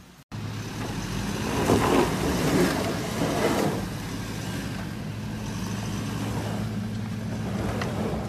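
Toyota Fortuner SUV engine pulling the vehicle up a dirt slope off-road, a steady low hum that grows louder and rougher between about one and four seconds in.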